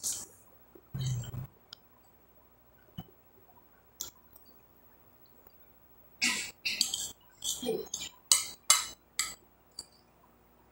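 Eating sounds: a spoon clinking and scraping on a glass plate, with chewing and mouth sounds. They come as scattered short bursts, then a quicker run of about eight between about six and nine seconds in.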